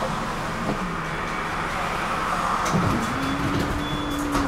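Tram running along its line: steady rolling noise of wheels on rails under the hum of the electric traction motors. The hum drops in pitch about a second in and rises again about three seconds in.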